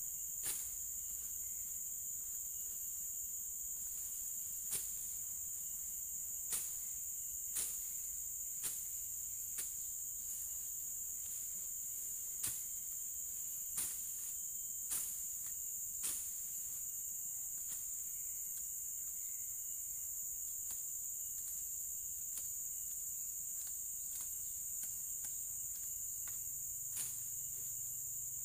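Steady high-pitched drone of insects, with irregular sharp swishing chops of a machete-like blade slashing through undergrowth, about ten strokes spread over the first half, then a long pause and one more chop near the end.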